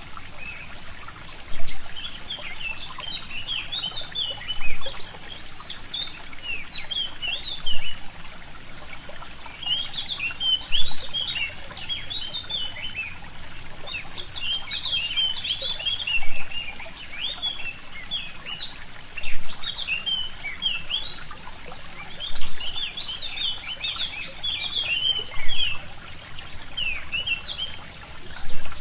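A stream trickling while small birds chirp in quick clusters of short high notes. The sound swells sharply about every three seconds.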